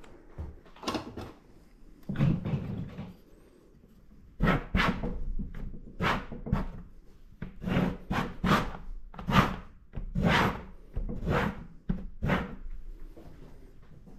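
A flat tool scraping acrylic paint across the surface of a painting in short strokes: a few at first, then a quicker run of about a dozen, each under half a second.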